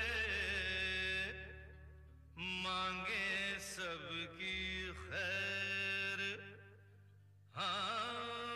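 A song with a singer holding long, wavering notes over a steady low drone, sung in phrases that break off briefly twice, about one and a half and about seven seconds in.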